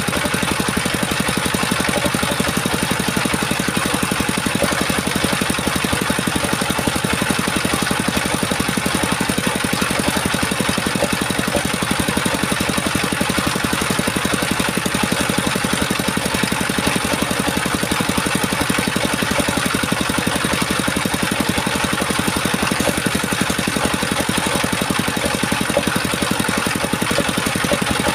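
A small engine running steadily at a constant speed, with no change in pitch or load.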